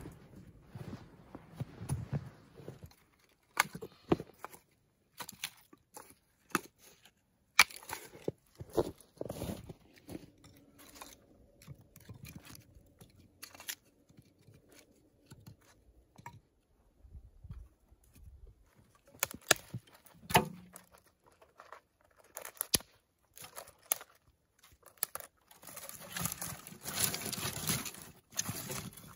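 Split kindling sticks knocking and clattering as they are laid into a rusty steel barrel fire pit, as scattered sharp knocks; near the end, dry twigs and branches crunch and rustle as they are packed in on top.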